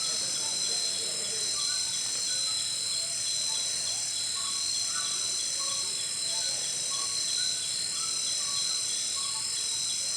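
Night insect chorus of crickets: a steady high-pitched trilling with one band pulsing on and off every second or so, and faint short chirps scattered through it.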